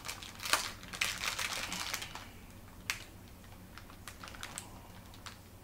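A snack packet being handled, giving light clicks and crinkles. They are busiest in the first two seconds, then thin out to a few scattered ticks.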